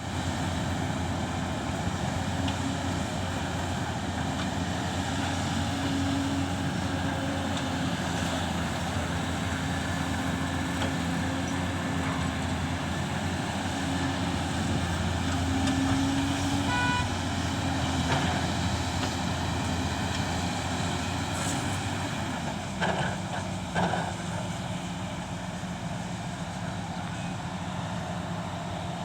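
Excavator's diesel engine running steadily under load as it digs, with a brief high-pitched tone about two-thirds of the way through and two short knocks near the end.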